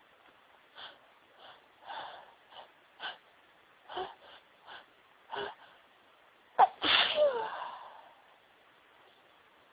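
A woman with a cold sneezing. Over about six seconds she takes a run of short, catching breaths as the sneeze builds. Then comes one loud sneeze with a voiced cry that falls in pitch as it trails off.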